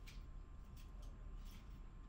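Soft footsteps of one person walking at a slow, even pace, about one step every three quarters of a second, over a faint steady low hum.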